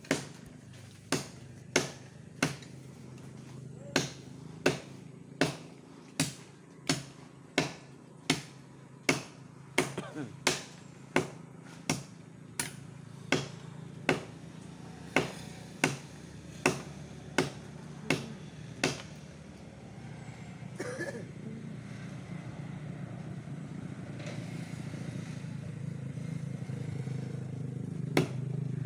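A machete chopping into a santol tree branch: sharp blows at an even pace of about three every two seconds, some two dozen in all, stopping about two-thirds of the way through. After that a motor vehicle's engine hums steadily, growing louder toward the end, with one more chop near the end.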